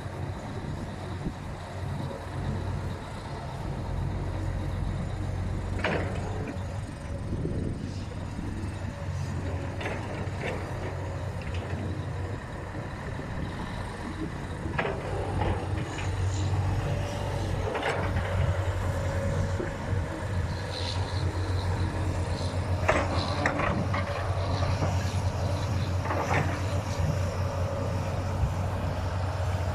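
Diesel engines of an excavator and a Scania dump truck running steadily, with repeated sharp clanks and knocks scattered through, several coming close together in the second half.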